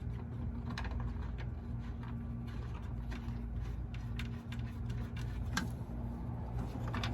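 Scattered light clicks and taps from handling the door bolts and hardware, a few per second at irregular intervals, over a steady low hum.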